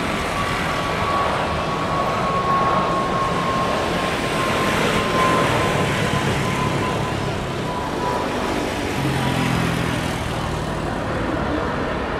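Airbus A320 jet engines during landing and touchdown: steady jet noise with a high whine that slowly falls in pitch. The noise swells about halfway through, then settles into a lower rumble as the airliner rolls out.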